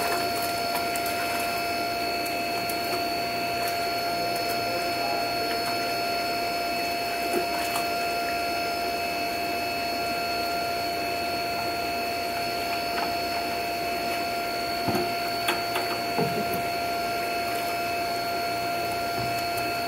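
Aerated fish holding tank: a steady machine hum with a high whine over bubbling, churning water. A few short splashes and knocks come as a dip net works the tank.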